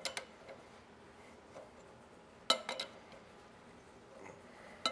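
Steel wrenches clinking against the harmonic balancer installation tool as the nut is run in on its threaded shaft: a few sharp metallic clicks right at the start, a cluster about halfway through, and another just before the end.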